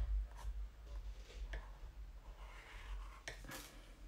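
Lamy Safari pen nib scratching on sketchbook paper in a few faint short strokes, the loudest near the end, over a low steady hum.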